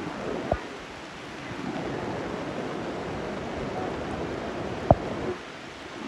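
Steady heavy rain falling, with two sharp taps, one about half a second in and a louder one about five seconds in.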